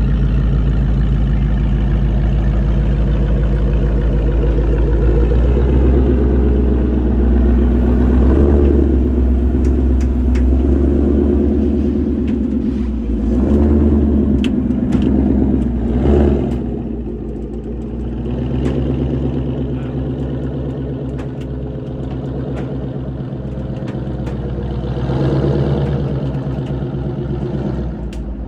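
High-performance car engine running and being revved, the pitch rising and falling several times in the first half, then settling lower and quieter, with one more rev near the end.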